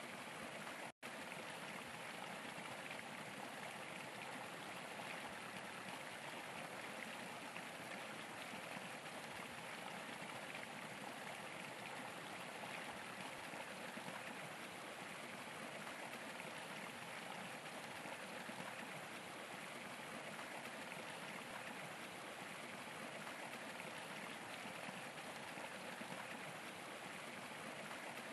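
Steady rush of running stream water, with a brief dropout about a second in.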